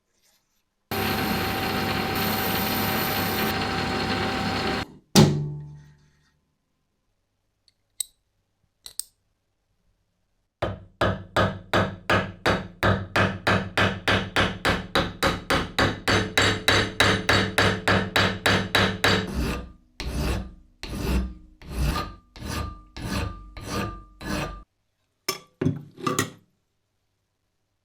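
A power tool runs steadily for about four seconds and stops with a knock. After a couple of clicks, a hand tool rubs back and forth on a workpiece in fast, even strokes, about four a second. Near the end the strokes slow to about one a second.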